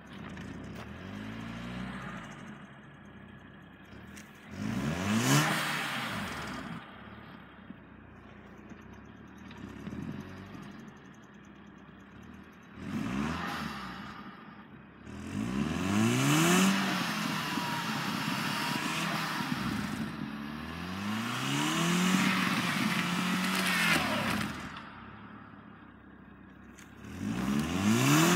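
2010 Volkswagen GTI's turbocharged four-cylinder engine revving up and falling back in repeated bursts, some held for a couple of seconds, as the car tries to drive out of deep snow, with a hissing, scraping noise of the wheels spinning in the snow during each rev.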